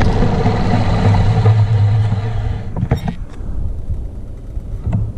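Electric bike on the move: wind and road noise over a steady low hum, dropping away sharply about three seconds in, with a few sharp clicks after.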